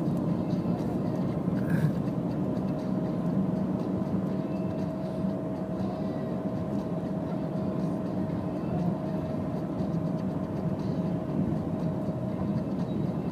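Car running at a steady cruise, heard from inside the cabin: a low engine and tyre rumble with a faint steady whine. There is a short click about two seconds in.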